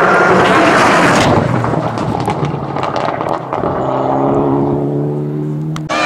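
A rally car at full speed on a tarmac stage: a loud rush of engine and tyre noise in the first second or so, fading as it goes away. Then a steady engine note holds in the distance, with a few sharp clicks in between.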